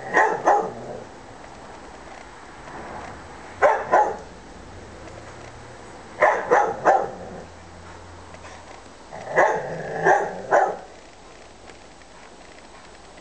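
Bouvier des Flandres barking in four short bursts of two or three barks each, about three seconds apart.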